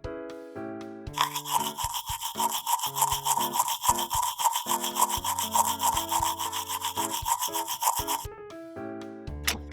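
Teeth being brushed with a toothbrush: rapid, even scrubbing strokes that start about a second in and stop near the end, over background music.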